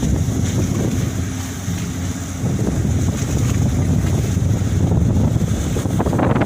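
Strong wind buffeting the microphone over the steady low rumble of a ferry, with a brief stronger gust near the end.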